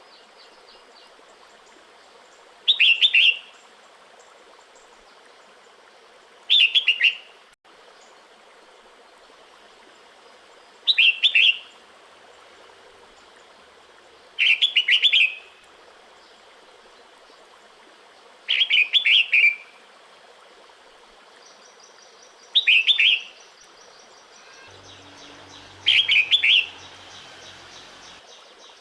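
Female red-whiskered bulbul giving short, bright chattering calls, seven of them about every four seconds: a breeding-season call to a male.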